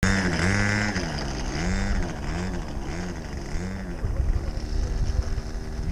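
Small model-airplane engine running, its pitch rising and falling repeatedly.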